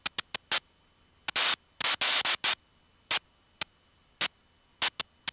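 Short bursts of rushing air noise on an aviation headset microphone, a dozen or so, each cutting in and out abruptly as the intercom squelch opens and closes, with the longest about a second and a half in.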